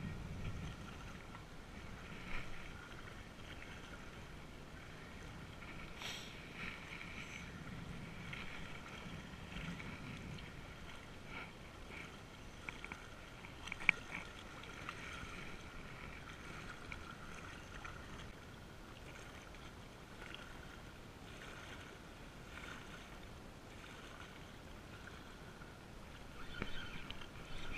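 Small waves lapping against a rocky lakeshore in a light breeze, with a faint steady high hum and a few small clicks.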